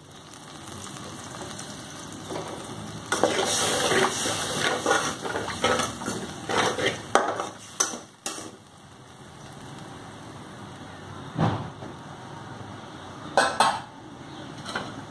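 Oil with cumin seeds sizzling steadily in a metal kadai on a gas burner, with a spatula scraping and stirring around the pan for a few seconds in the middle. Three separate knocks follow later on.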